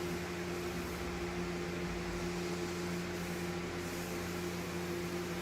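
Window fan running steadily: an even rush of air over a constant motor hum.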